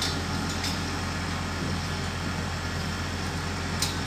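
Diesel engine of an XCMG 100-ton truck crane running steadily during a lift, a constant low hum, with a couple of short ticks near the start and the end.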